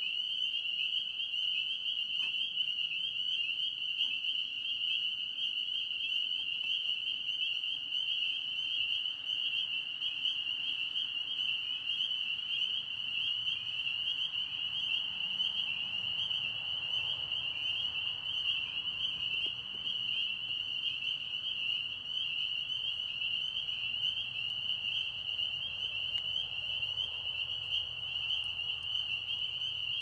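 A dense chorus of pond frogs calling: many high-pitched notes overlapping into one steady, unbroken din.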